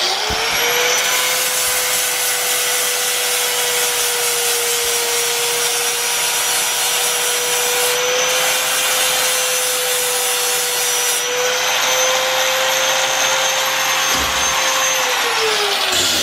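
Angle grinder switched on and running steadily at full speed, a high whine over a rushing noise, winding down near the end when it is switched off.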